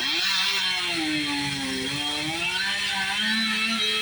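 Chainsaw engine running at high revs, its pitch wavering up and down as it cuts.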